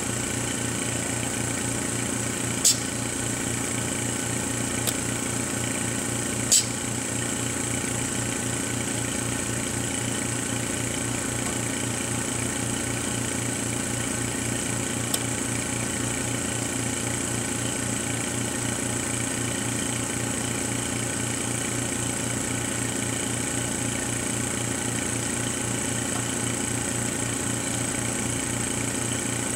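Steady mechanical hum with a low drone and a faint high whine from the running Karl Suss MJB3 mask aligner setup. Four short sharp clicks stand out, the loudest about three and six and a half seconds in, as the microscope and alignment controls are handled.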